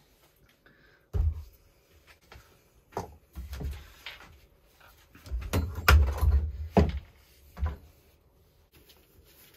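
A string of knocks and thumps as a Stihl MS 251 chainsaw is lifted, turned and set down on a wooden workbench, the loudest cluster about six seconds in.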